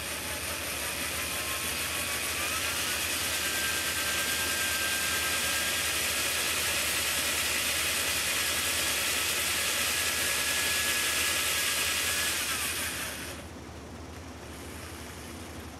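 Corded electric drill boring through thin plexiglass into a wooden backing board. Its motor whine steps up in pitch about two seconds in, holds steady, then winds down and stops near the end. It is run a little fast, fast enough that the plastic melts around the bit.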